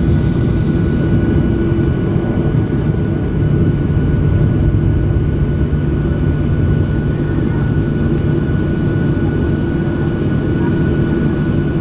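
Boeing 737-700's CFM56-7B jet engines running at taxi idle, heard from inside the cabin: a steady low rumble with a thin, steady whine above it.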